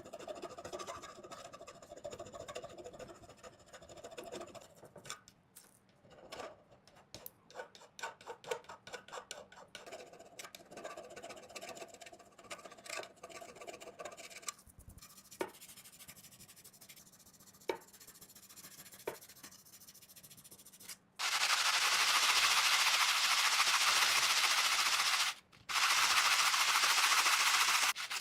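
Irregular scraping, rubbing and light clicks of hand work on metal. About 21 seconds in, a loud, steady abrasive power tool starts working the knife's corroded metal, stopping briefly once near 25 seconds before starting again.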